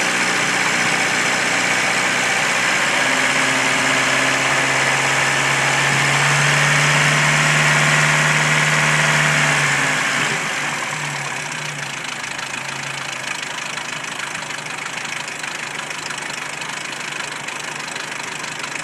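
A 1993 Jeep Wrangler YJ's stock 2.5L four-cylinder engine running with a knock, held at a higher speed for the first half and then dropping back to a quieter idle about halfway through. The owner suspects the valves, piston slap or the timing chain tensioner.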